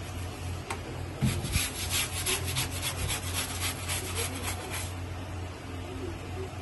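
Wooden-backed scrub brush scrubbing a shirt cuff on a washing table, about four quick strokes a second for several seconds, starting about a second in. This is a light brushing of the cuffs and collar after stain-remover treatment, before the shirt goes into the washing machine.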